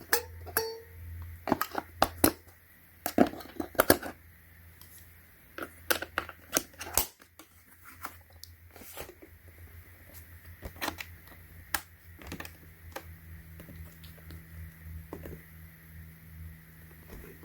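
Irregular sharp plastic clicks and knocks of two AA batteries being fitted into a wireless keyboard's battery compartment and the keyboard being handled, thickest in the first several seconds and sparser afterwards.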